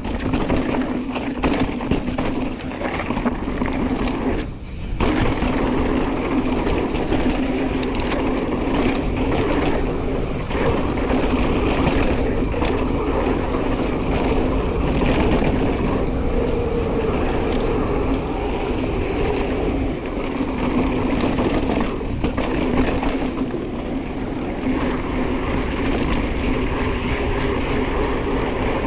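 Hardtail mountain bike rolling down a dry dirt singletrack: steady tyre noise on the dirt with wind rushing over the camera microphone, and scattered clattering knocks as the bike runs over bumps.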